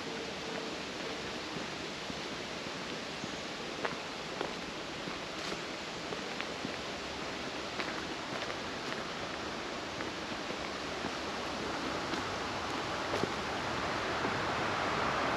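Steady outdoor rushing noise with a few faint, scattered clicks, growing louder over the last few seconds.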